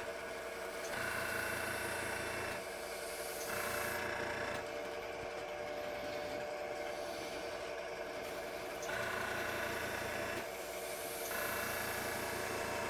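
Wood lathe running steadily at low speed while an airbrush sprays alcohol dye onto the spinning wood in four short hissing bursts, each about one to two seconds long.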